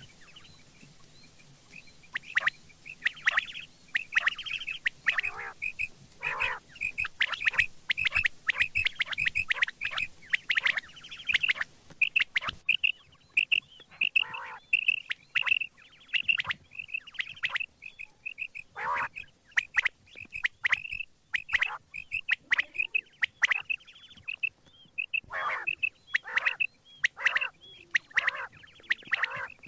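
Quail (batair) calling over and over, starting about two seconds in: quick runs of short high notes, several a second, broken now and then by louder notes that fall in pitch.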